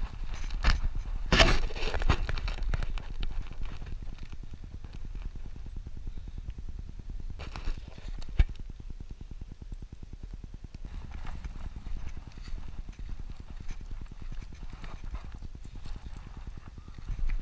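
Footsteps on a dirt trail, irregular and loudest in the first couple of seconds, then quieter, with two sharp clicks just past the middle.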